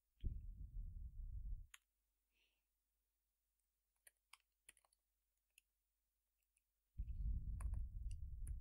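Typing on a computer keyboard: soft key clicks and low thuds in two short stretches, near the start and near the end, with a few isolated clicks between them.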